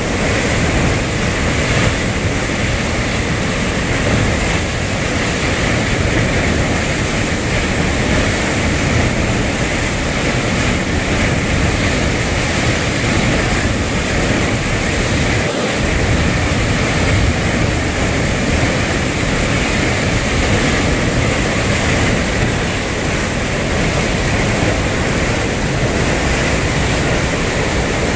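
Floodwater pouring through a concrete spillway channel at very high outflow, about 3,160 cubic feet per second: a loud, steady rush of churning whitewater.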